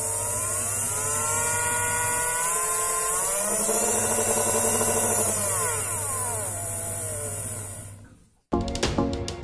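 Small DC motors of a homemade gear-and-rubber-band-belt rig running with a whine that rises in pitch and then falls, over a steady low hum. It fades out about eight seconds in, and background music with a beat starts near the end.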